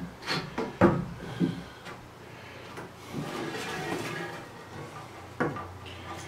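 Wooden bunk bed parts being handled: a few knocks of wood on wood in the first second and a half, then a rubbing, sliding noise of wood against wood, and a single sharp click near the end.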